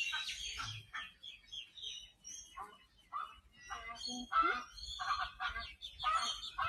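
Birds calling: a string of short, pitched calls, one after another in quick succession.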